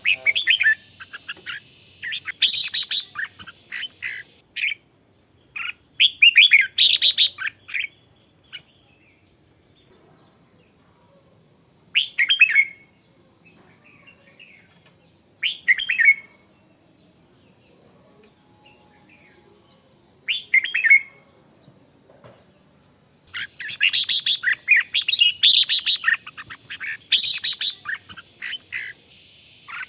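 Red-whiskered bulbuls singing in short, bright phrases separated by pauses, then a dense run of rapid song over the last several seconds. A steady high-pitched tone runs underneath.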